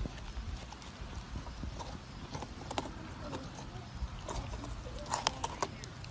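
Puppy gnawing at a whole pumpkin, its teeth scraping and clicking irregularly on the hard rind, with a cluster of sharper clicks about five seconds in.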